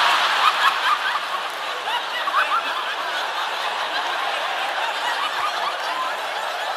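A large theatre audience laughing together, many voices at once, loudest at the start and easing slightly toward the end.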